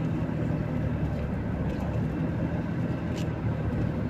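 A motor vehicle running steadily, with a low, even engine and road rumble.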